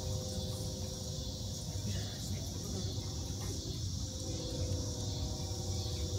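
Steady high-pitched chirring of insects over a low background rumble, with faint voices of an outdoor audience.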